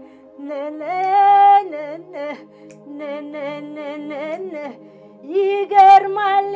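A woman singing long held notes that waver and ornament around the pitch, in phrases with short breaks, louder again near the end. A faint steady low hum runs underneath.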